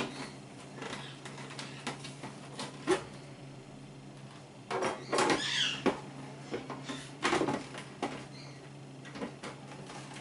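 Plastic lid and pusher of a KitchenAid food processor clicking and knocking against the bowl as the lid is lined up, pushed down and twisted to lock, with two longer stretches of plastic scraping on plastic around the middle.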